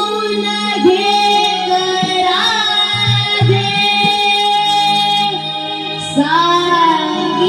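Naman folk-theatre song: a high voice holds long, wavering sung notes over a steady low instrumental drone, with a few sharp drum-like strokes.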